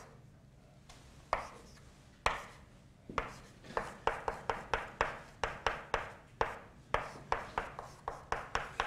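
Chalk writing on a blackboard: a run of sharp taps and short scrapes as each stroke hits the board, a few spaced taps at first, then two or three a second.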